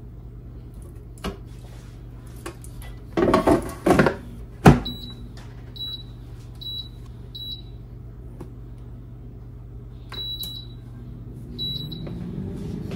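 Air fryer being loaded and started: scraping and a sharp clunk as the basket goes in and latches, then four short high beeps about a second apart as the control panel's buttons are pressed, and a longer beep and another near the end as it starts. A low whir of the fan rises just before the end.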